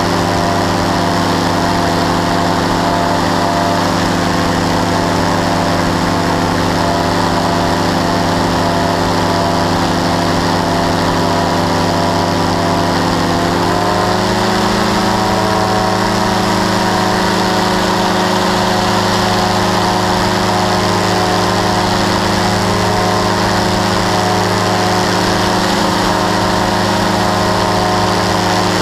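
Powered parachute engine and propeller running steadily in flight. About halfway through, the engine note steps up slightly in pitch and holds at the higher speed.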